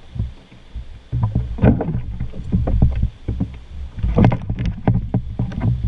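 Repeated knocks and clunks as a canoe pole and boots strike the canoe's hull and the shoreline rocks while the canoe is brought in to the bank, with the densest knocking about a second and a half in and again about four seconds in. Rushing river water and a low rumble run underneath.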